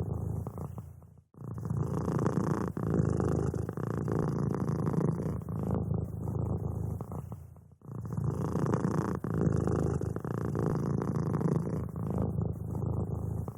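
Domestic cat purring steadily, a low, fast rumbling pulse that breaks off briefly twice, about a second in and again about two-thirds of the way through.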